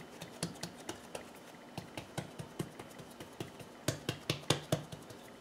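Fingertips pressing and patting bialy dough flat into rounds on a silicone baking mat, making quick, light, irregular taps, with a louder run of them about four seconds in.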